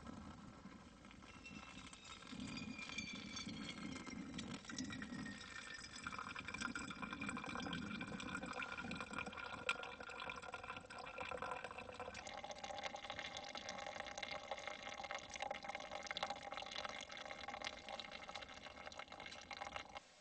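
Hot water poured from a small cook pot onto coffee grounds in a paper-filtered pour-over dripper, then brewed coffee trickling and dripping into the container beneath; faint.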